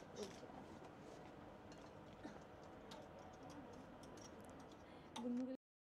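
Faint scattered clicks of clothes hangers knocking and sliding on a metal clothing rail, over quiet room tone.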